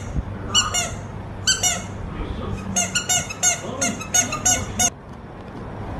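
Rubber squeaky dog toy squeezed by hand: two quick pairs of squeaks, then a fast run of about eight squeaks, roughly four a second.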